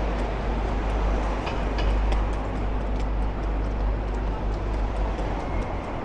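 City street traffic: a steady low engine rumble under a continuous wash of road and street noise, with a few faint clicks.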